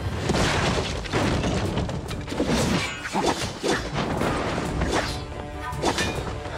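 Fight-scene soundtrack: background music under a rapid run of sword clashes, heavy hits and whooshes, with a few short metallic rings near the end.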